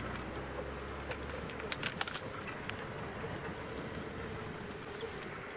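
Open safari vehicle driving off-road through grass: engine rumble with a few sharp knocks and rattles in the first two seconds, after which the rumble drops away to a quieter run.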